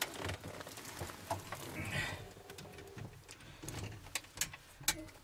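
Irregular rustling, light knocks and clicks from a phone being handled and people shifting in a small aircraft's cockpit, with the engine not yet running.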